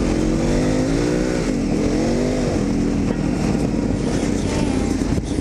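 Adventure motorcycle engine running under way on a dirt road, its revs rising and falling around a couple of seconds in, with steady wind and road noise.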